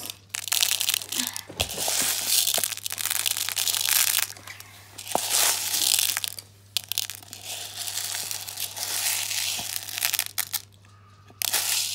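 Small plastic bean-bag pellets rattling and rustling as a hand scoops them and lets them pour through the fingers into a plastic bowl. The rattle comes in two long stretches with a short break about six and a half seconds in, and drops away shortly before the end.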